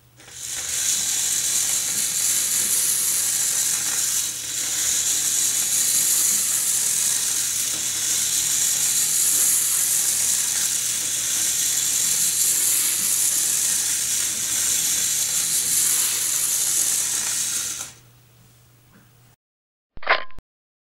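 Homopolar train of a battery and neodymium magnets running through a bare copper wire coil, the magnets rasping and rattling along the coil turns in a steady, hissy buzz that cuts out about 18 seconds in. Near the end come two brief swishes.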